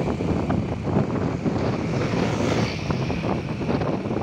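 Small motorcycle engine running as the bike rides along, with wind rushing over the microphone; the wind noise rises briefly about halfway through.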